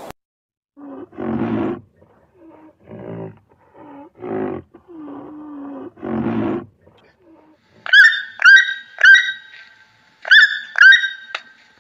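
A few short, low animal calls about a second apart, then from about eight seconds in a keel-billed toucan calling: a louder run of short, rising, croaking notes, about two a second.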